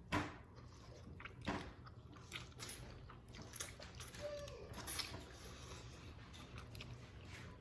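Faint eating noises from people eating spicy instant noodles: soft wet mouth sounds with a few scattered clicks.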